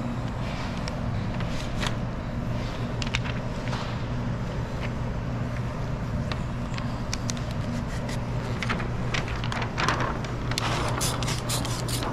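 Window tint film being pressed, smoothed and shifted by hand on a wet curved window, with scattered crackles and light scrapes that get busier near the end, over a steady low hum.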